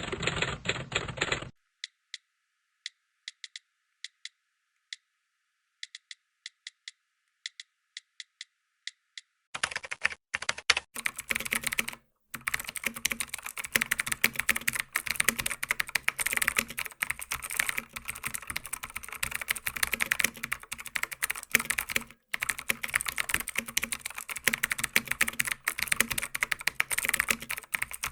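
Computer keyboard typing sound effects: a short run of key clicks, then several seconds of sparse, thin single clicks, then from about ten seconds in a fast, continuous run of clacking keystrokes.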